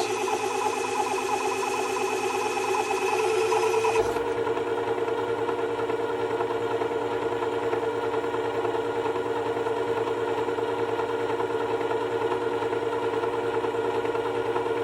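Work Sharp WS3000 sharpener's motor running steadily with a hum, spinning its abrasive glass platen. A higher hiss on top eases off about four seconds in.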